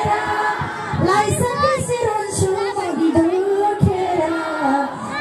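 A woman singing a Nepali lok dohori folk song into a microphone, her voice gliding through an ornamented melody over music with a steady low beat.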